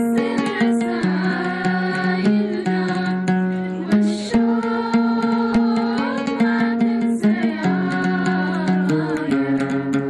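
Music of an oud played with a melody of long held notes that step to a new pitch about every second, singing and light hand percussion over it.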